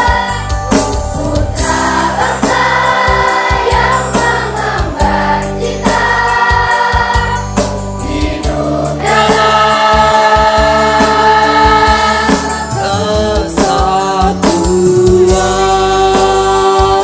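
Voices singing together in chorus over instrumental backing music, with long held notes.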